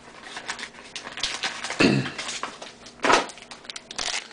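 Trading-card pack wrapper crinkling and rustling as it is opened and the cards are pulled out, with two louder handling bumps about two and three seconds in.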